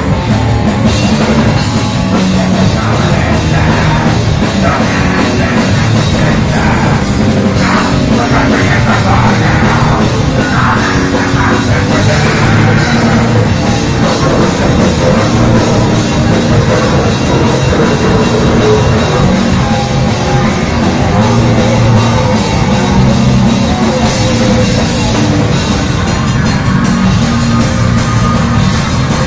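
Live hardcore punk band playing loud, with drum kit and amplified guitars through the club PA, heard from within the crowd.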